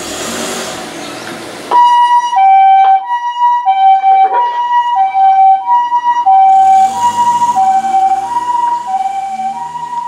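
An ambulance's two-tone electronic siren switches on suddenly about two seconds in, after a steady rushing noise. It alternates a high and a low note (the Japanese "pee-poh"), each held about two-thirds of a second. From about seven seconds the vehicle's engine and road noise join it as the ambulance goes past.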